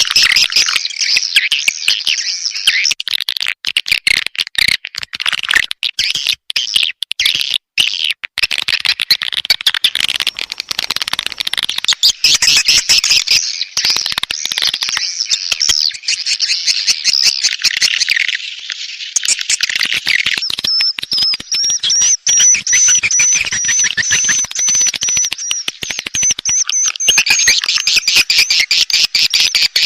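Dense swiftlet twittering: rapid high chirps and clicks overlapping without pause. This is a lure call of the mating-call kind, meant to draw swiftlets. About two-thirds of the way in, a steady, slightly wavering high trill joins the chatter.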